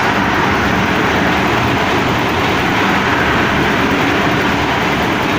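Concrete mixer machine running: a steady, loud mechanical noise with a low hum that holds even throughout.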